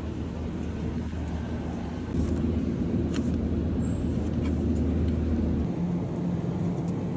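Steady low electrical hum of supermarket refrigerated display cases. It grows louder about two seconds in and changes to a higher steady tone near the end.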